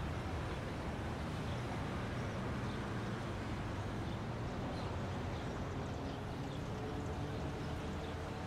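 City street ambience: a steady low rumble of distant traffic.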